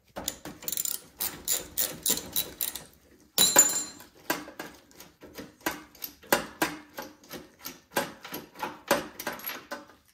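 Ratchet wrench clicking as the spark plug is backed out of a Troy-Bilt snowblower engine. There are irregular clicks at first and one louder clank a little over three seconds in, then an even run of about three clicks a second.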